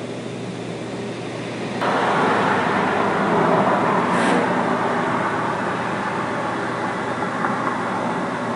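Refrigerated container units humming steadily, then a loud rushing noise sets in suddenly about two seconds in and slowly fades, with one short high hiss partway through.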